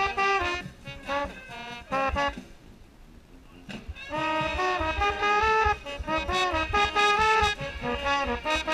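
Marching band brass playing, with a mellophone right at the microphone: short detached notes for about two seconds, a brief pause, then longer held notes from about four seconds in.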